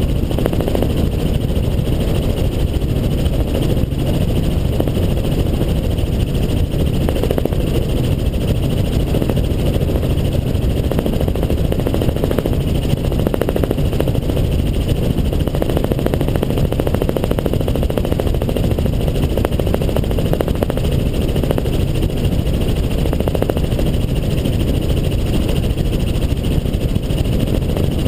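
Helicopter in flight: steady, loud engine and rotor noise.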